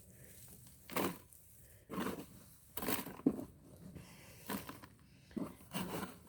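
Digging through soil in a container to get at sweet potatoes: irregular crunching, scraping strokes of dirt and roots being broken up and moved, about seven in a few seconds.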